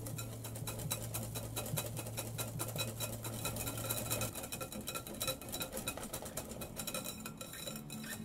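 Wire balloon whisk beating a thick, creamy butter batter in a glass mixing bowl, its wires clicking rapidly and steadily against the glass.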